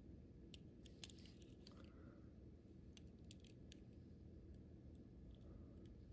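Near silence with faint, scattered small clicks and ticks from fingers handling and turning a die-cast Hot Wheels toy car.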